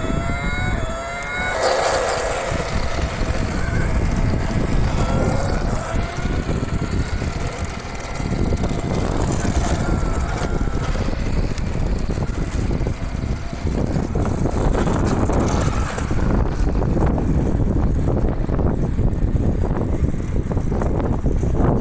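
Vintage TOMY F1 radio-controlled toy car, converted to a brushless motor, running. A whine rises in pitch right at the start, then rises and falls again as the car speeds up and slows, over a steady rough noise.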